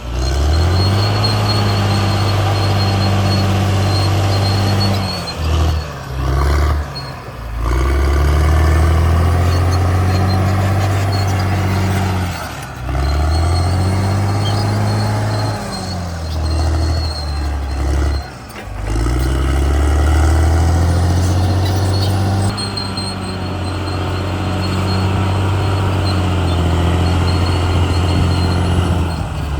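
Caterpillar D6R XL bulldozer's diesel engine running hard, its note dropping and climbing back several times as it works.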